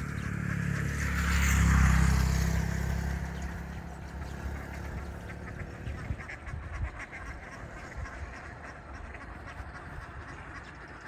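Ducks quacking. About two seconds in, a loud rumble swells up and fades away, like a vehicle passing close by.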